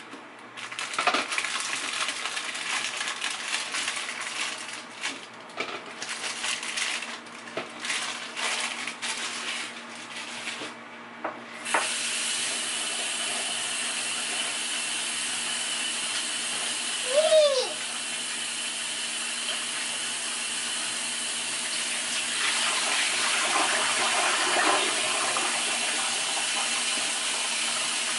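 Irregular clattering and knocking as potatoes and dishes are handled in a kitchen sink, then the faucet is turned on less than halfway through and water runs steadily into the sink. A brief high squeal cuts in over the running water once.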